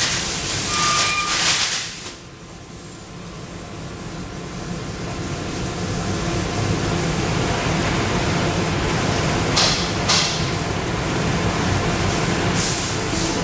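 TRUMPF LiftMaster Compact sheet loader working its suction-cup frame over the laser cutter's pallet: a steady mechanical running noise that drops suddenly about two seconds in, then swells gradually, with short bursts of hiss near ten seconds and again near the end.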